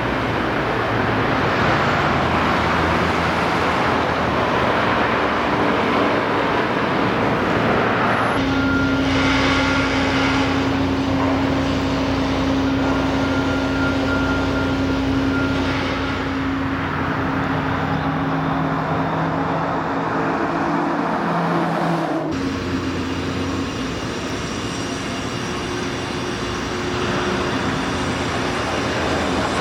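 Road traffic noise: cars and other vehicles running past with a steady engine hum. The sound changes abruptly twice, about 8 and 22 seconds in.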